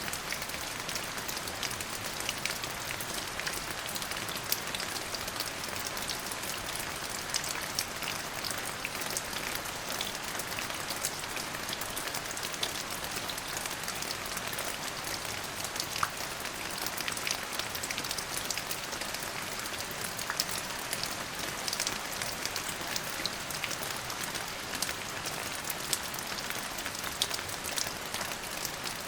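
Steady rain falling on a surface, an even hiss dotted with many individual drop taps.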